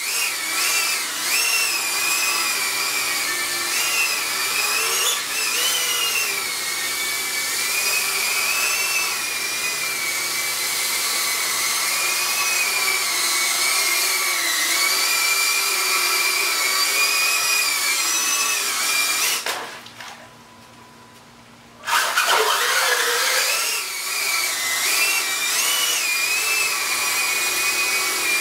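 Shendrones GeyserPhobe cinewhoop drone flying, its motors and ducted propellers giving a high, steady whine whose pitch wavers as the throttle changes. About twenty seconds in the whine falls away for a couple of seconds, then spins back up.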